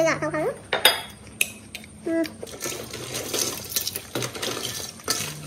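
Raw oysters in their shells clinking against a stainless steel bowl and against each other as a hand picks through them. A couple of sharp clicks come about a second in, then a dense run of clinks in the second half.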